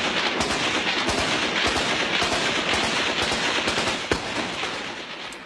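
Dense, overlapping gunfire from many firearms shooting at once, shots tumbling over one another with no gaps. It thins and dies away over the last second or so.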